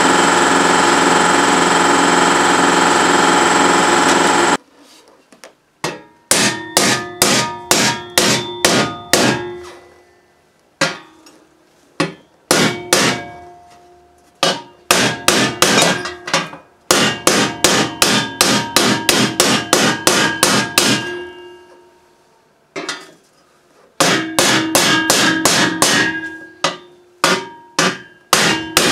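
A hammer striking a homemade louver-forming tool to press louvers into 2 mm steel sheet, in runs of quick blows about three a second with short pauses between runs, the steel ringing after each blow. It opens with a few seconds of steady, loud power-tool noise that cuts off about four and a half seconds in.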